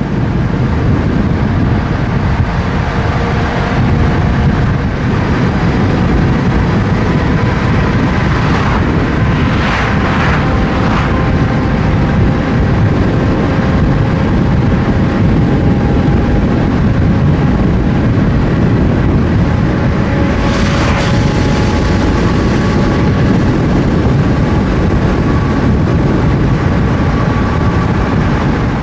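Steady low rumble of road and wind noise from a car driving at speed, with faint whining tones that slowly rise in pitch. Brief louder rushes of hiss come about nine to eleven seconds in and again around twenty seconds.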